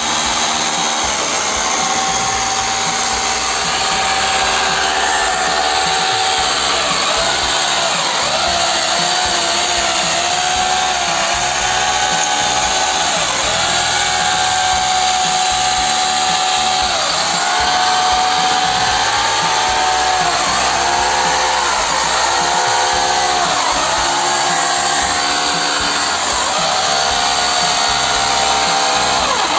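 Electric angle grinder running at full speed on steel bars, its whine dipping in pitch again and again as the disc is pressed into the metal and recovering each time it is eased off.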